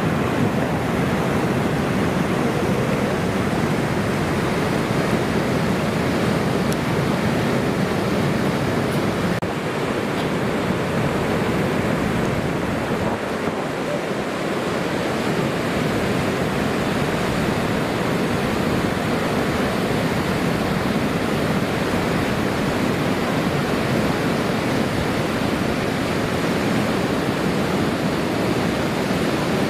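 Swollen river in flood, its fast water rushing in a steady, dense roar of churning flow.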